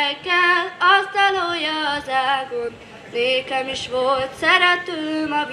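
Children singing unaccompanied: a single melody line of held notes in short phrases with brief breaks between them.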